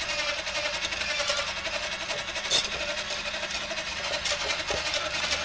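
Small battery-operated whisk running steadily, its wire whisk beating melted chocolate into hot cream in a stainless steel saucepan with a fast buzzing rattle. A brief sharp clink comes about two and a half seconds in.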